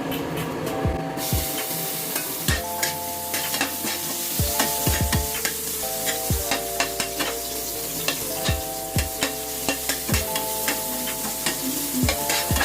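Onions frying in hot oil in a pan, with the sizzle starting suddenly about a second in, and a spatula clicking and scraping against the pan as they are stirred.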